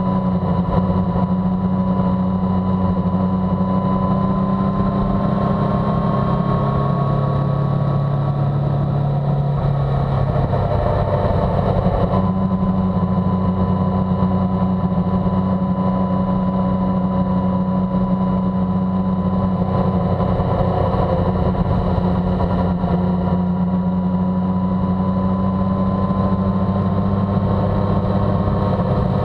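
Motorcycle engine cruising at steady road speed, heard from the bike itself, with wind and road noise. Its note holds mostly level, changing slightly about ten seconds in and climbing a little near the end as the bike speeds up.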